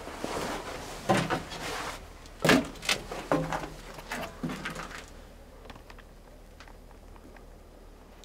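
Knocks and clunks of someone moving about and bumping against the steel interior and fittings of a dead electric locomotive, several in the first half, then only faint ticks.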